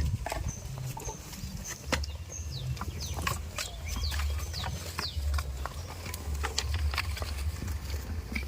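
Farmyard ambience: small birds chirping in short, high, falling notes, with scattered clicks over a steady low rumble.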